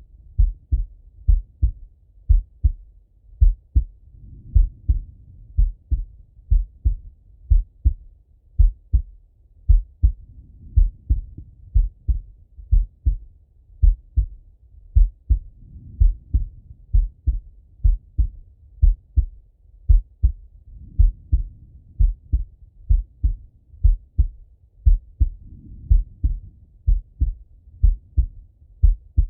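A man's heartbeat heard through a Littmann stethoscope: steady, deep, muffled lub-dub pairs of thuds at a slow, even pace. A soft swell of noise comes and goes every five or six seconds beneath the beats.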